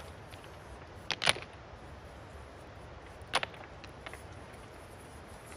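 Stones knocking against each other as they are handled and set down: a sharp double clack about a second in, another in the middle, then a few light taps.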